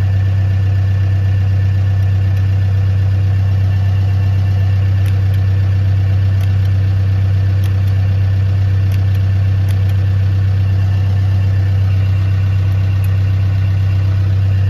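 New Holland D95B bulldozer's diesel engine idling steadily, a low, even drone heard from inside the cab.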